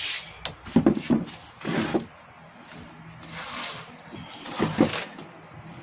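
A few short knocks and scrapes of a chair and a wooden workbench as a person sits down and handles a disassembled flat-screen TV panel.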